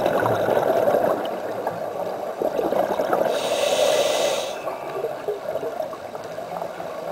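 Scuba breathing heard underwater through the camera housing: exhaled bubbles from a regulator bubble and crackle throughout, with one inhalation hiss from the regulator lasting about a second, a little over three seconds in.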